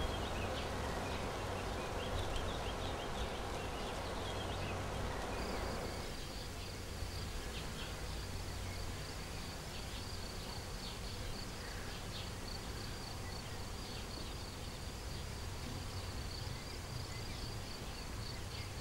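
Summer countryside ambience: insects trilling in one continuous high tone, which sets in about six seconds in, over a low steady background noise, with a few faint short chirps.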